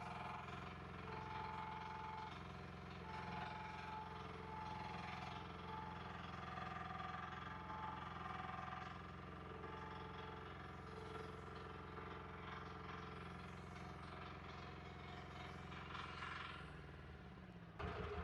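Small diesel engine of a compact earthmoving machine running steadily, with higher whining tones coming and going over it as it works; the sound changes abruptly near the end.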